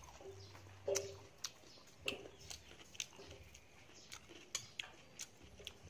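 Faint eating sounds: scattered small clicks and taps of chewing and a spoon touching a plate, with a few brief murmured voice sounds.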